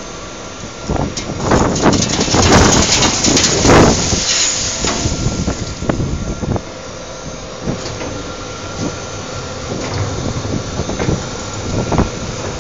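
Waste-processing machinery running with a steady hum and faint whine while a skip hoist tips shredded municipal waste into a steel feed hopper: loud rattling and rushing from about one to five seconds in, then the steady machine running continues with scattered knocks.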